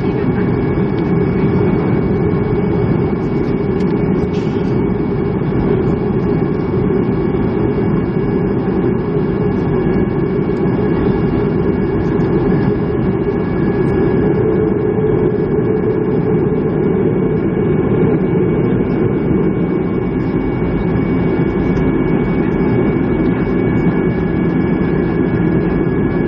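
Cabin noise inside a Boeing 737-300 taxiing after landing: its CFM56-3 jet engines at idle as a steady rumble, with a couple of thin, steady whining tones above it.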